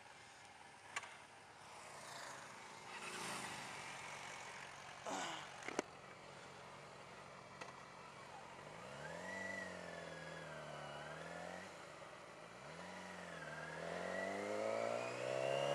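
Yamaha R6 sportbike's inline-four engine, quiet at first, running at low revs with a wavering pitch about halfway through, then revving steadily higher and louder over the last few seconds as the bike accelerates. A few sharp clicks in the first half.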